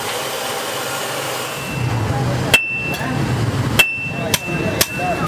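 A hand hammer strikes a red-hot bearing-steel knife blade on a steel anvil. There are about four blows, starting about two and a half seconds in, each followed by a high ringing note from the anvil. Before the blows there is a steady mechanical hum.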